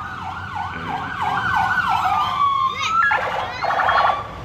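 Electronic toy-siren sound from a becak lampu's sound system. It yelps up and down about three times a second, then glides, and about three seconds in it switches to a rapidly pulsing multi-tone sound.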